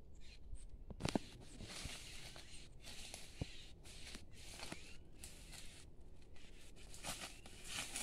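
Footsteps and rustling through dense brush and leaf litter as a person searches the undergrowth, with a few sharp twig snaps, the loudest about a second in.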